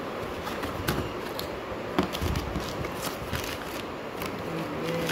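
Cardboard shoe box being opened and handled, the lid coming off and tissue-paper wrapping rustled, with scattered taps and knocks, the loudest about two seconds in.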